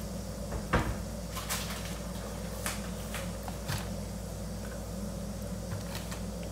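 Kitchen cupboard doors and things inside them handled: a handful of sharp clicks and knocks, the loudest just under a second in. Underneath is a steady faint hiss of cheese sticks in spring-roll wrappers frying in shallow oil, and a low hum.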